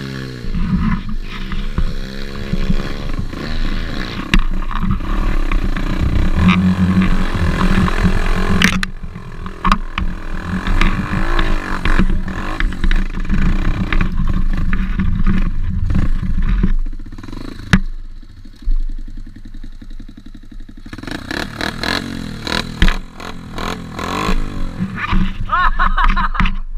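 Pit bike engine revving up and easing off repeatedly as it rides a rough track, with a few sharp knocks. It drops to a lower, quieter run for a few seconds past the middle, then picks up again.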